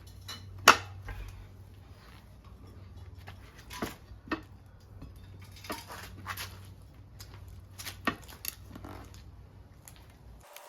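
Metal tire tools clicking, knocking and scraping against a motorcycle wheel rim while an old dry-rotted tire is pried off. A sharp knock comes about a second in, with a few more knocks later on.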